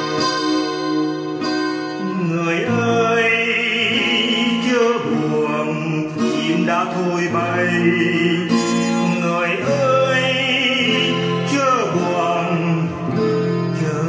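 Music: an acoustic guitar playing, with a voice singing over it from about two seconds in.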